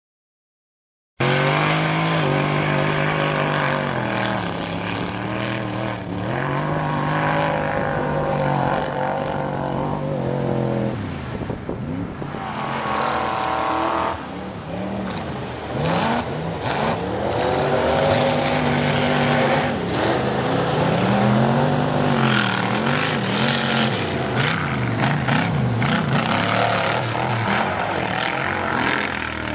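Mud bog truck's engine revving hard as it plows through a mud pit, its pitch climbing and dropping again and again as the throttle is worked. It starts about a second in.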